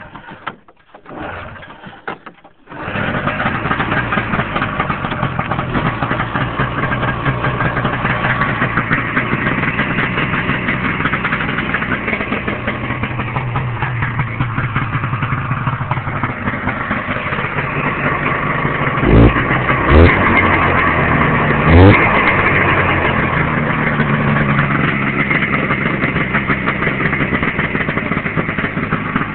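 1990 Polaris Indy Sport 440 snowmobile's two-stroke engine with an AAEN aftermarket exhaust, cranked on half choke; it catches about three seconds in and then idles steadily. Near the end it is given three quick throttle blips.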